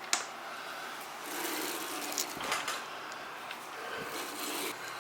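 Rubbing and scraping with a few light clicks as the controls and sliding parts of a Makita LS1019 miter saw are worked by hand, with the saw not running.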